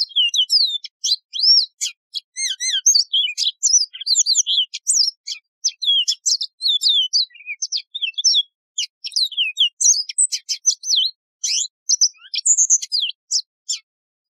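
Yellow-fronted canary (Mozambique serin) singing: one long, fast run of high, ringing whistled notes, slurs and trills that stops shortly before the end.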